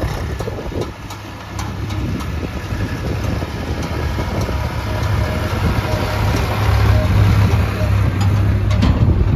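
Heavy diesel machine engine running with a deep, steady rumble. It grows louder after the first couple of seconds and is loudest near the end.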